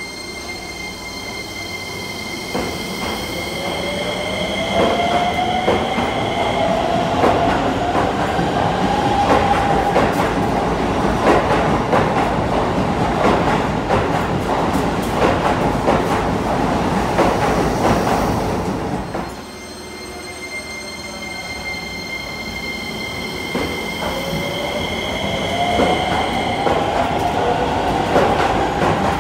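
Hokuso Railway 7500 series electric train pulling out of an underground station: the traction motor whine rises in pitch as it accelerates, over the rumble and clatter of the wheels. About two-thirds of the way through, the sound drops off briefly and a second rising whine builds.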